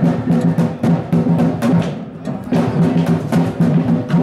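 Music with a steady, driving drum beat over repeating low bass notes.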